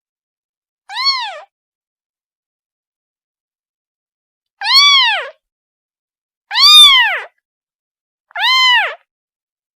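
A kitten meowing to call its mother: four high meows, each rising then falling in pitch, with gaps of silence between them. The third meow, a little past the middle, is the loudest.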